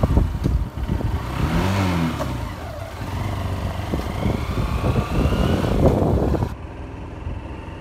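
Motorcycle engine running during a ride, with wind buffeting the microphone. The engine pitch rises and falls briefly about a second and a half in, and the sound turns duller near the end.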